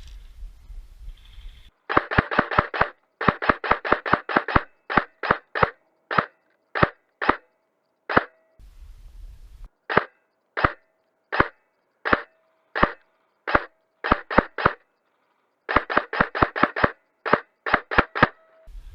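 Airsoft gun firing: a quick string of shots at about five a second, then single shots spaced under a second apart, then another quick string near the end.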